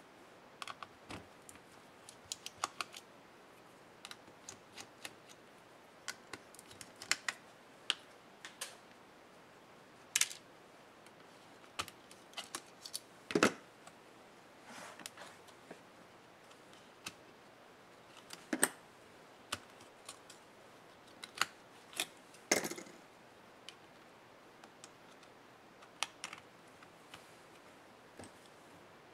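Irregular small clicks, taps and rattles of plastic and metal laptop parts being handled and pried apart by hand, with a few louder knocks of parts or tools against the bench or chassis.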